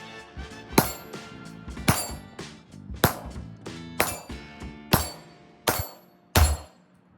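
Background music with sustained pitched notes and a sharp percussive hit about once a second, the hits coming slightly faster near the end.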